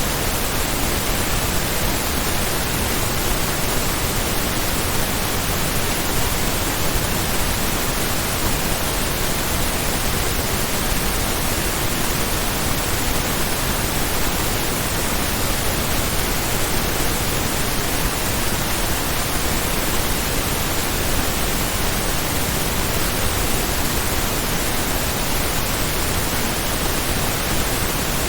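True-stereo pink noise test signal, mastered to −14 LUFS with a −1 dB peak: a steady, even hiss spread across the whole frequency range, unchanging throughout.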